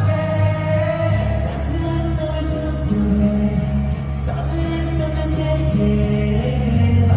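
Live K-pop song through an arena PA: male voices singing a melody over a backing track with a deep, steady bass line.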